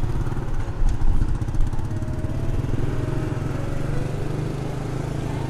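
Engine and road noise of a moving vehicle, a steady low rumble with a fast, even pulse.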